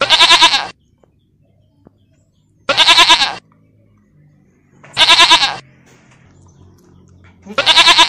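An animal calling four times, about two and a half seconds apart, the last near the end. Each call is loud, lasts under a second and wavers quickly in pitch.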